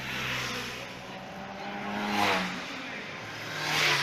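Motor vehicles passing close by on the road, one a little after two seconds in and another near the end. The engine pitch drops as the first goes past.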